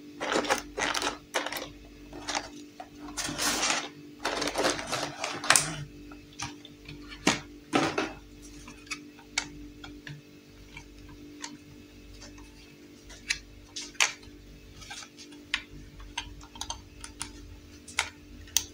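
Clear plastic packaging crinkling and rustling as a toy sewing machine is pulled out of it, dense for the first half, with one more crackle about eight seconds in. After that come sparse light clicks and taps of the hard plastic toy being handled.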